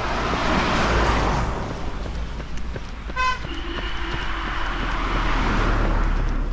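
Road vehicles passing close by, twice, with a short horn toot about three seconds in.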